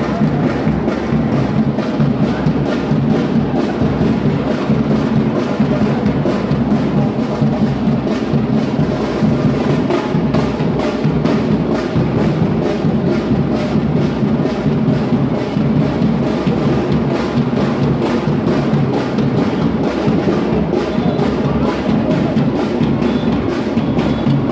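Batucada samba drum ensemble playing a steady, driving groove: big bass drums under snares and other hand percussion, loud and continuous.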